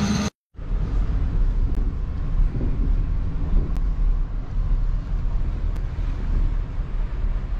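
A vehicle driving, heard from inside the cab: a steady low rumble with wind buffeting the microphone. It comes in after a short dropout just after the start.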